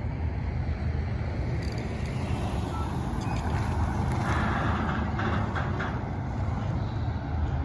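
Double-stack intermodal freight train rolling over a bridge: a steady low rumble of wheels on rail. A car drives by on the road beneath about four seconds in, adding a swell of tyre noise with a few clicks.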